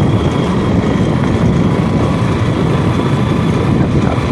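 Motorcycle riding at speed: a steady low engine and road rumble with wind rushing over the microphone.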